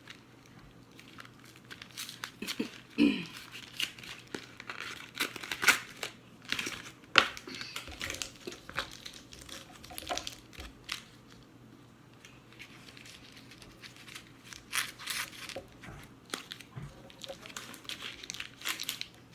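Cream cheese packaging being crinkled and torn open by hand, irregular crackling and ripping noises.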